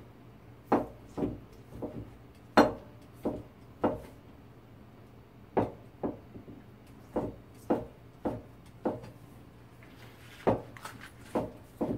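Chinese cleaver slicing shiitake mushrooms on a plastic cutting board: a run of separate knocks of the blade against the board, one or two a second, with a couple of short pauses.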